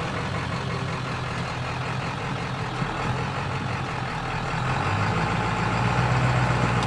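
Ford 7.3L Power Stroke turbo-diesel V8 running at low revs as the truck crawls over a rock obstacle. It gets louder over the last two seconds as it pulls harder over the crest.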